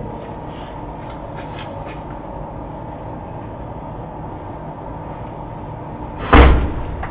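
Steady background hum broken about six seconds in by a single loud slam.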